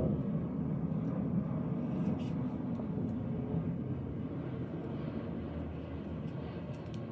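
Faint scratching of a graphite pencil on paper over a steady low rumble, which is the loudest sound.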